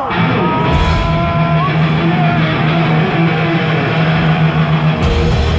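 Live heavy metal band playing loud: heavily distorted electric guitars over bass and drums, with a pulsing low riff, kicking in as a new song begins.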